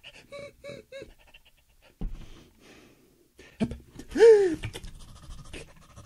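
A man's wordless vocal sounds: a quick run of short pitched syllables in the first second, then a loud drawn-out cry that rises and falls in pitch a little past four seconds. There are a couple of soft knocks on a wooden tabletop as yarn is handled.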